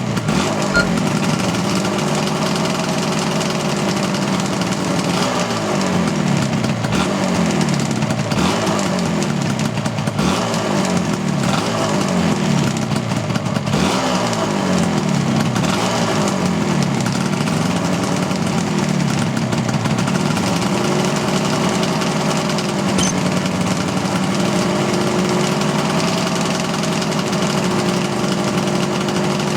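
Yamaha RZ250's two-stroke parallel-twin engine running warm, its speed falling and rising every couple of seconds for about the first twenty seconds, then running steadier near idle.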